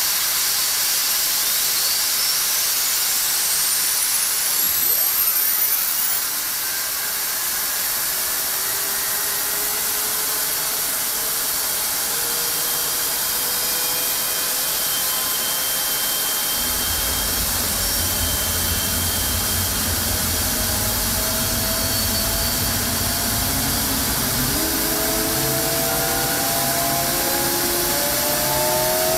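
General Electric F110-GE-100 turbofan starting up on a test stand: a loud steady rush of air with a high whine rising over the first few seconds. About sixteen seconds in a low rumble sets in, and near the end several tones climb together as the engine spools up.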